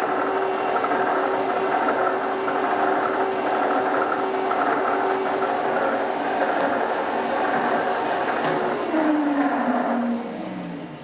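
Oliver Model 600 drill grinder running with a steady hum, then switched off about eight and a half seconds in; its electric motor winds down in a falling tone and the sound fades.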